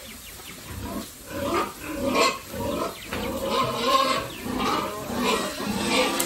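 Several domestic pigs crowding a feed trough, giving repeated grunts and higher squeals that start about a second in.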